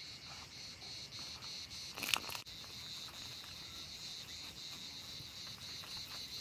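Insects chirping in a steady, rapidly pulsing high-pitched rhythm, with one short sharp noise about two seconds in.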